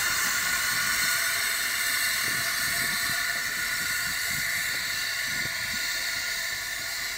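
Narrow-gauge steam locomotive hissing steam steadily as it moves slowly away, the hiss fading gradually.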